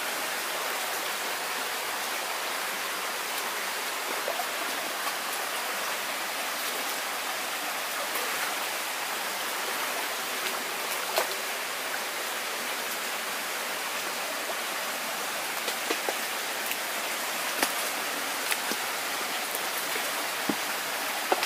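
Shallow stream running and rippling over rocks, a steady rushing, with a few short sharp ticks, mostly in the last few seconds.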